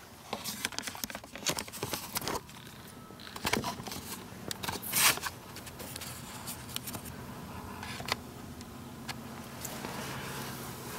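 Handling noise of a hand-held camera being picked up and moved: rubbing, clicks and crackles for the first five seconds or so. Then a low steady hum with a few scattered ticks.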